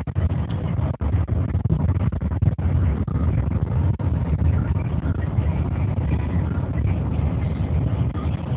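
Steady low rumble of road and engine noise inside a moving car, with a few brief dips in loudness.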